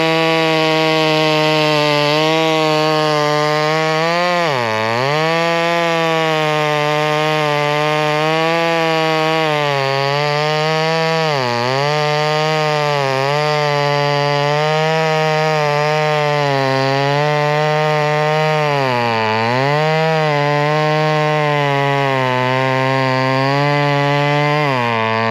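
Two-stroke 58cc gas chainsaw running at high speed, its engine note dipping briefly in pitch about four times and recovering each time.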